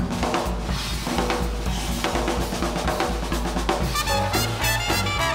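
Jazz drum kit break: rapid snare, bass drum and cymbal strokes. About four seconds in, the trombone, trumpet and saxophone come in together in a swing ensemble passage.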